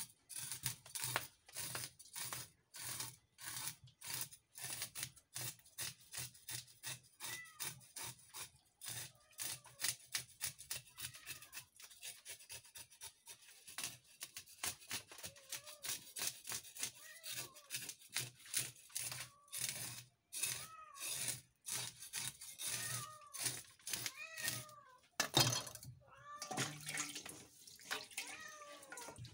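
A knife blade scraping the scales off a whole fish on a wooden chopping block, in quick even strokes about two a second. From about a quarter of the way in, an animal gives many short rising-and-falling calls over the scraping.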